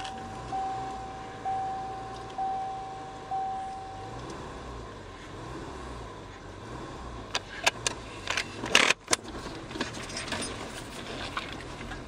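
Inside a '99 Subaru Forester, a warning chime dings about once a second, stopping about four seconds in. The engine runs low underneath, and a few sharp clicks and knocks come about eight seconds in.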